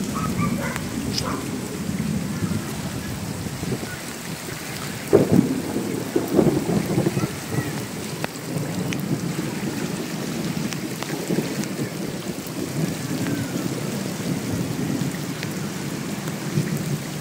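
Heavy rain with muddy floodwater rushing through a street: a steady, dense rushing noise, with a few louder swells about five and six seconds in.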